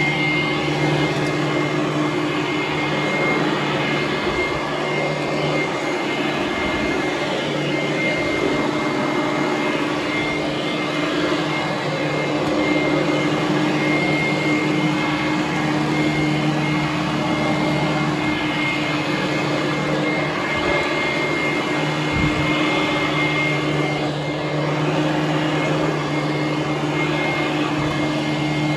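Hoover Conquest upright vacuum cleaner running steadily as it is worked over carpet: a constant motor hum with a thin high whine.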